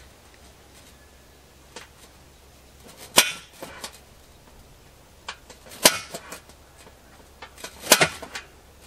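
A center punch struck into the wall of a stove flue pipe to mark the damper hole: three sharp metallic strikes about two to three seconds apart, with lighter taps between them. The last strike comes as a quick double hit.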